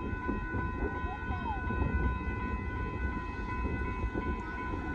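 Railroad grade-crossing warning bell ringing as a steady high tone over a low, constant rumble.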